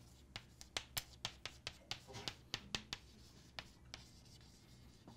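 Chalk tapping and scraping on a blackboard as words are handwritten: a run of sharp clicks, about four a second, that thins out after about three and a half seconds.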